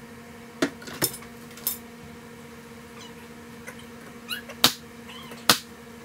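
Pneumatic brad nailer firing brad nails into wood facing strips: several sharp pops, the two loudest near the end. Between the shots come a few short, high, squeaky rising sounds, over a steady low hum.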